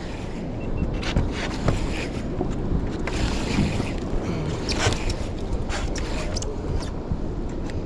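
Steady wind and water noise aboard a small fishing boat at sea, with several short, sharp sounds scattered through it.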